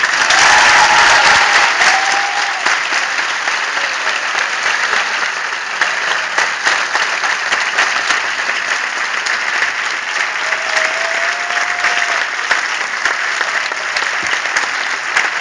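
Audience applauding steadily: dense, even clapping from a large crowd, with a faint voice or two rising above it now and then.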